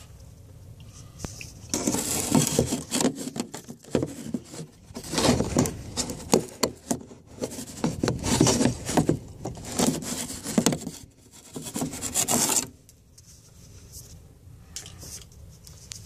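Dryer vent cleaning brush scraping and rubbing inside a metal dryer vent pipe, in uneven bursts that start about two seconds in and stop suddenly a few seconds before the end.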